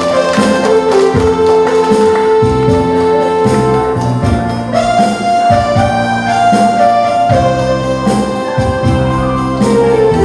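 Instrumental intro of a Korean trot song: a keyboard or organ-like melody in long held notes over a steady drum beat, with no singing yet.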